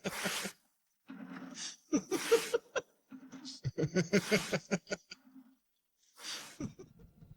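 A man's manic laughter: fast runs of 'ha-ha' pulses broken by loud, breathy gasps for air. It is a separated vocal stem, so there is no backing music.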